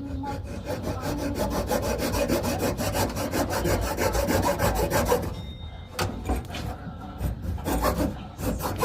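Hand saw cutting in quick back-and-forth strokes, with a short break about five seconds in before the sawing starts again.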